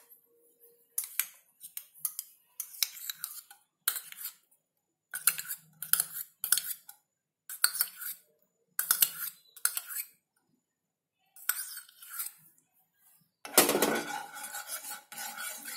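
A spoon clinking and scraping as ghee is scooped into a non-stick pan, in short separate bursts about a second apart. Near the end comes a longer, louder run of scraping in the pan as the ghee is spread out to melt.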